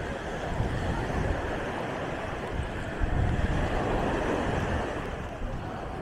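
Beach ambience: wind buffeting the microphone in gusts, over a steady wash of small waves breaking on the sand and faint voices of people on the beach.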